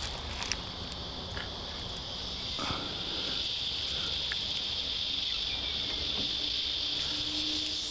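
Steady high-pitched chorus of insects in bushland, a continuous shrill buzz.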